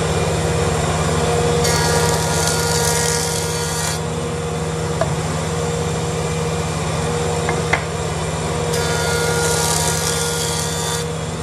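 Powermatic jointer running steadily while a maple board's edge is fed across the cutterhead twice, each pass adding about two seconds of bright cutting noise. The board is being edge-jointed flat and square to its face against the fence.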